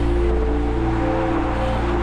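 Background music: held chords that shift every half second or so over a steady deep bass, with an even hiss underneath.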